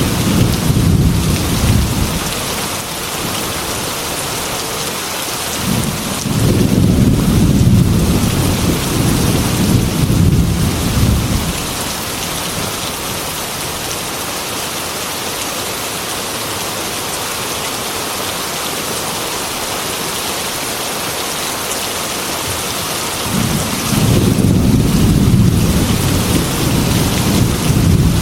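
Heavy rain falling with a steady hiss, under rolling thunder. Long, deep rumbles come at the start, again from about six to eleven seconds in, and once more near the end.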